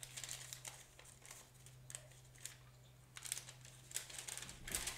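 Wax paper crinkling and rustling in short scattered bursts as it is handled, busiest toward the end, over a low steady hum.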